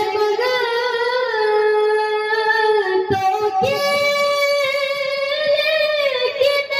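A young naat reciter singing unaccompanied through a hall's loudspeakers, holding one long note and then a second, higher one, with a brief break for breath about three seconds in.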